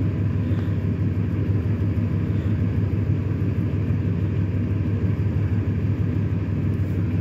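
Pickup truck engine idling steadily: a low, even rumble.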